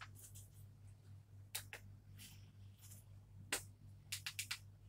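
Faint steady low hum with a few light clicks and rustles, then a quick run of about five clicks near the end, from a foam toy glider plane being handled.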